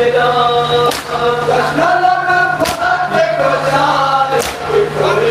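A group of men chanting a nauha mourning lament together in long held notes, with sharp chest-beating slaps (matam) landing in time about every second and three-quarters, three strikes in all.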